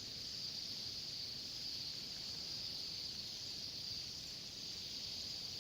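A large flock of small birds calling all at once, their high calls blending into a continuous shrill chorus.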